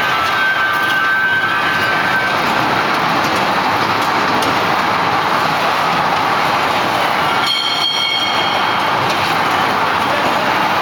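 Children's wave-train ride running on its tubular steel track: a steady rolling noise from the cars' wheels on the rails, with a brief high-pitched tone about seven and a half seconds in.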